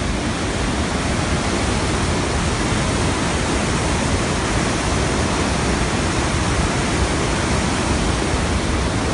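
The Rhine Falls' big waterfall rushing, a loud steady roar of water that does not change.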